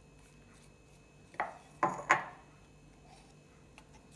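A small wooden spoon knocking and scraping against a ceramic mug as a thick cream is stirred and scooped out: three sharp knocks with a short ring, about a second and a half to two seconds in, among a few faint clicks.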